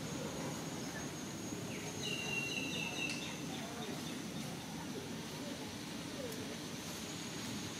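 Outdoor tree-canopy ambience: a steady high insect drone over a low background hum, with a short high whistled call about two seconds in.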